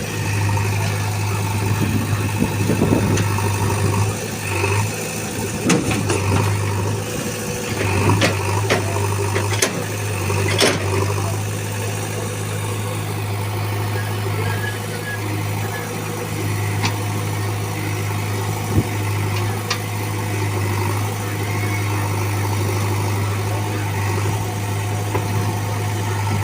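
JCB backhoe loader's diesel engine running steadily with a deep hum, with a few short sharp knocks scattered through the first two-thirds.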